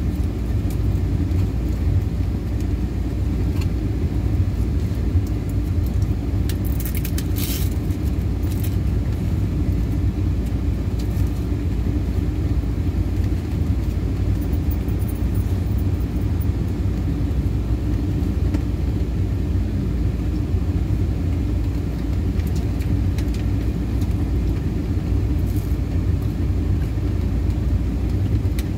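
Steady low rumble of a car idling, heard from inside the cabin, with a few brief rustles about seven seconds in.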